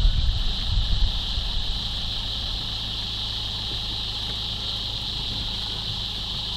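Vehicle engine idling steadily, with a constant high insect drone over it. There is heavier low rumbling in the first second or so.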